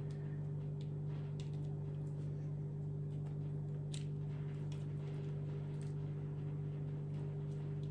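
A steady low electrical hum, with a few faint light clicks.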